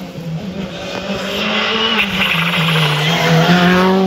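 Rally car engine approaching a hairpin, growing louder, its pitch stepping up and down as the revs change.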